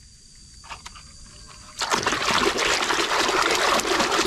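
A hand swishing and churning through a basin of muddy water. It is quiet at first, then from about two seconds in comes steady, loud sloshing and splashing.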